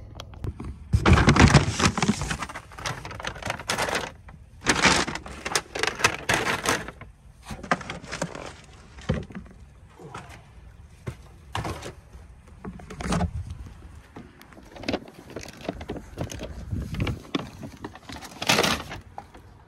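Paper grocery bags being handled and set down: a string of irregular rustles, crinkles and knocks, loudest about a second in and again near the end.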